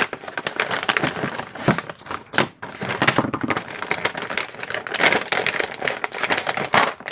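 Crinkly plastic zip pouch rustling and crackling as it is handled and tipped out, with small cardboard stationery boxes knocking against it and the table.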